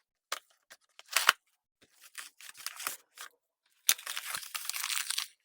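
A package being opened by hand: scattered clicks and short rustles of packaging, then about a second and a half of continuous cutting or tearing noise near the end.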